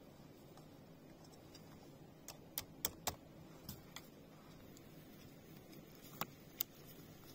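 A series of sharp, brief clicks or knocks, about eight in an irregular scatter, over a faint steady background.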